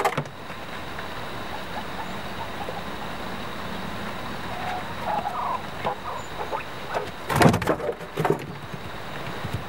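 Quails giving a few soft, short calls over a steady hiss. Two louder sudden rustling knocks come near the end.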